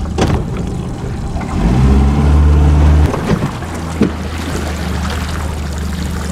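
A 70 hp outboard motor running steadily at low speed. About a second and a half in it revs up, holds for about a second and a half, then throttles back down. There is a short knock about four seconds in.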